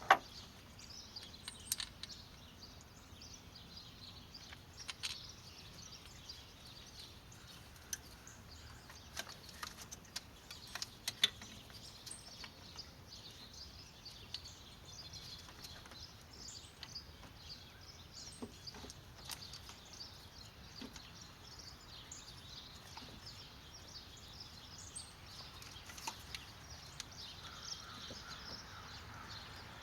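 Faint, scattered clicks and clinks of metal parts being handled as a gasket and throttle body are fitted to the engine, the sharpest click about eleven seconds in. Birds chirp faintly in the background.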